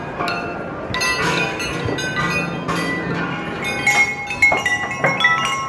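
Metal clanging: many quick strikes in irregular succession, each leaving a ringing tone, with several different pitches overlapping.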